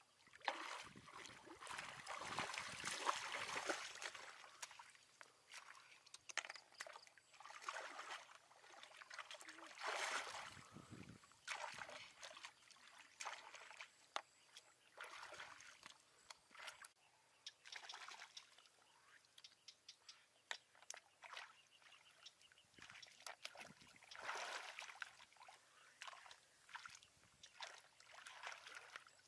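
Water sloshing and trickling in irregular splashes, loudest in the first few seconds and again about ten seconds in.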